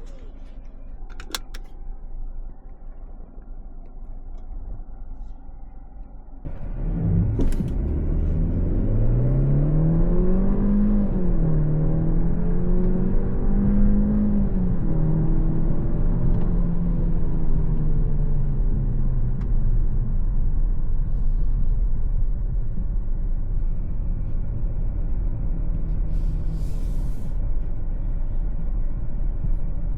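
Mercedes-Benz C 200's 1.5-litre turbocharged four-cylinder petrol engine accelerating the car: about six seconds in the engine note jumps up and rises in pitch, dips briefly at a gearshift, climbs again, then settles into a steady cruise under road and tyre hum.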